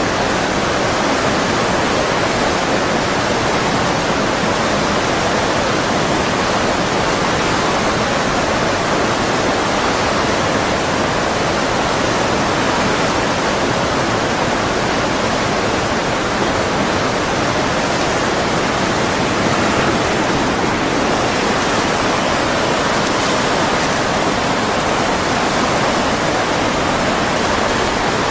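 Tsunami floodwater rushing, a loud steady wash of noise with no breaks.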